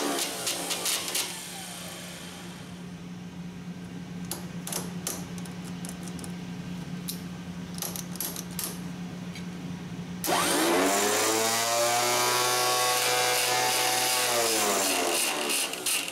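Electric starter motor of a Ford tractor, with a new-style centrifugal-clutch Bendix drive, run on the bench. It coasts to a stop in the first second, then after a quieter stretch of low hum and a few clicks it is switched on about ten seconds in. It whines up to full speed, runs steadily a few seconds and winds down near the end, spun fast so the stuck-open clutch locks release under light screwdriver pressure on the gear.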